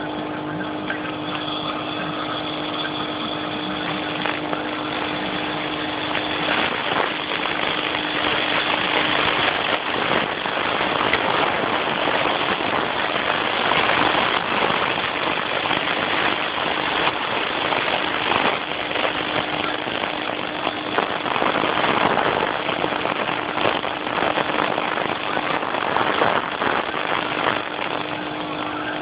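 Nebulizer's air compressor running steadily: a constant motor hum with a hiss of air, growing somewhat louder several seconds in.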